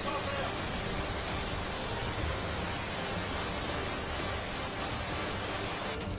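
Fast floodwater rushing through a street, a steady even rush of noise that cuts off abruptly near the end.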